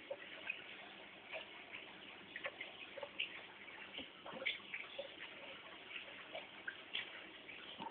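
Terrapins moving and feeding in a shallow plastic tub of water: faint, irregular small clicks and water plips over a low hiss.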